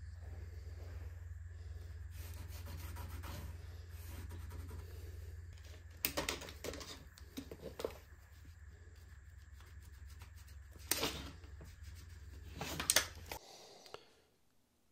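Paper and a tape measure being handled on a sheet of kraft paper: a few short rubbing scrapes and rustles over a steady low hum, which stops about a second before the end.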